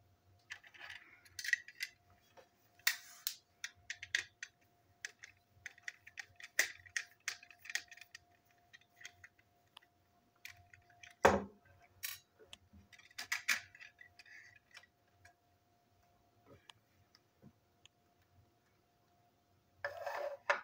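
Small clicks, taps and rustles of plastic model train coaches being handled and set down on a tabletop, with one sharper knock about halfway through and a short scrape near the end.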